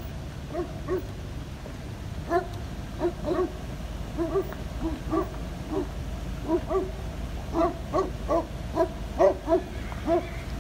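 A dog whining and yipping in short, repeated high cries, two or three a second, loudest about three quarters of the way through.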